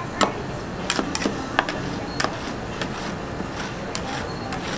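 Metal spatulas scraping and tapping on the frozen steel plate of a rolled-ice-cream cold plate as a thin layer of ice cream is scraped up. Irregular sharp clicks and scrapes sound over a steady low hum.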